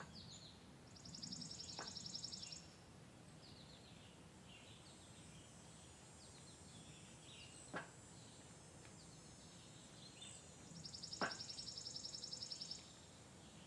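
Songbirds chirping, with two rapid, buzzy high trills of about two seconds each, the first about a second in and the second near the end. Three faint sharp taps come in between.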